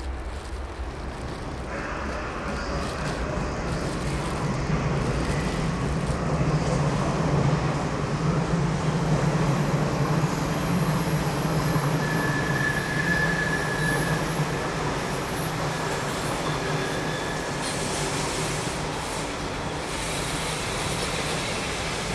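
Passenger train of DB coaches rolling slowly past, a steady rumble of wheels on rail that swells about halfway through. A thin wheel squeal sounds for a couple of seconds just after the middle.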